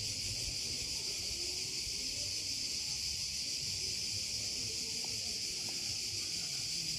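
Steady, high-pitched chorus of cicadas in the pine trees, unbroken throughout, with a low murmur of water lapping close by.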